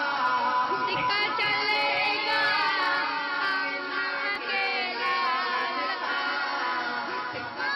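Man singing a naat without instruments, one voice in long, wavering held lines that rise and fall in pitch.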